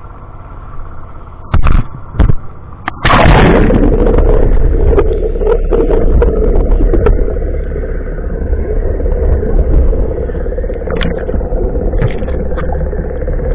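An engine runs steadily, with two loud knocks a little under two seconds in. About three seconds in the sound plunges underwater with a loud splash. After that it is a muffled underwater rumble with a steady hum and scattered crackles.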